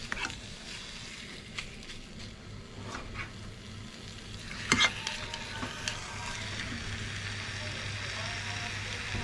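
Raw chicken thigh pieces sizzling as they fry in a nonstick pan, a steady hiss broken by knocks as pieces are set down, the loudest about five seconds in. A low hum joins about four seconds in.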